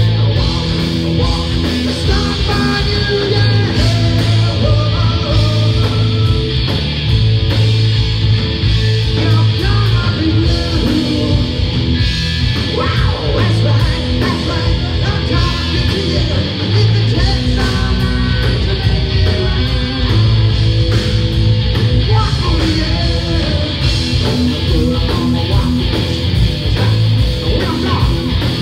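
Rock band playing live at full volume: electric guitars, a heavy low end and a drum kit, with a lead singer's vocals over them.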